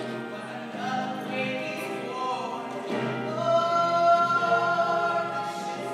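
A group of voices singing a musical theatre number, with piano accompaniment. About three seconds in they hold a long note.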